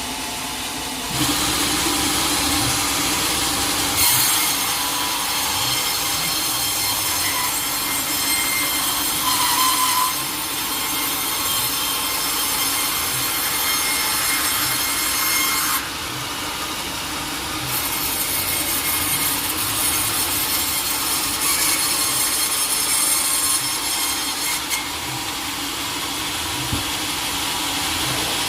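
Sawmill saw cutting through a teak log, a steady loud sawing noise that jumps in level about a second in, eases for a moment near the middle and picks up again.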